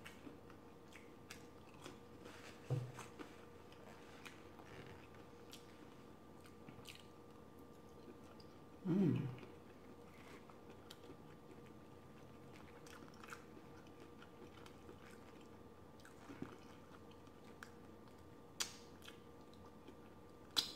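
Close-up eating sounds: chewing and biting of deep-fried, battered lobster tail, with faint scattered crunchy clicks from the crisp batter. A short low hum comes about three seconds in and a louder one about nine seconds in.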